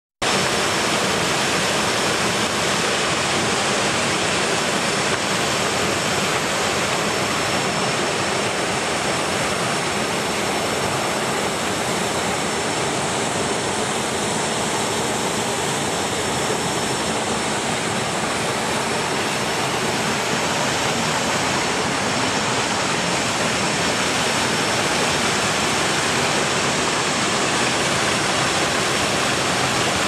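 Small waterfall spilling over a low rock ledge into a pool: a steady, unbroken rush of falling water.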